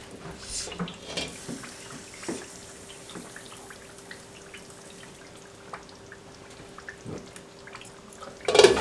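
Tomato stew simmering in an open pot, a faint watery bubbling with scattered small pops over a steady low hum. A brief louder sound comes near the end.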